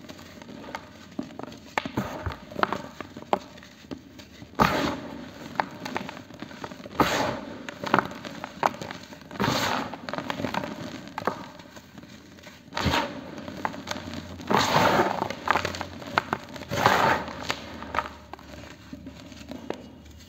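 Hands squeezing and crumbling dry cement clumps and powder: an irregular run of gritty crunches and crackles, with louder crunching squeezes every two to three seconds.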